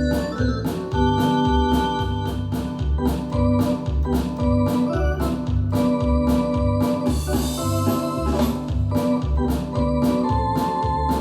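Yamaha DX7 FM synthesizer playing an organ-like patch in held chords and melody over a bass line and a steady drum beat. A hissing swell rises about seven seconds in.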